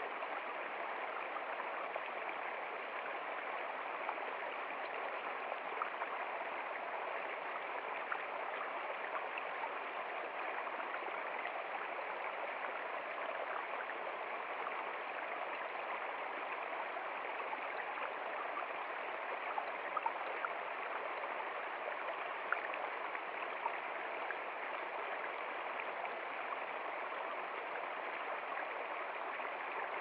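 Small rocky stream rushing and splashing over stones in a steady, even flow, with a few brief splashes standing out a little past the middle.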